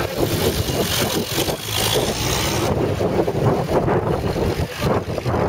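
WWII military vehicles driving past in a convoy, led by a Willys-type jeep with an M8 Greyhound six-wheeled armoured car behind, their engines running at low speed in a steady rumble.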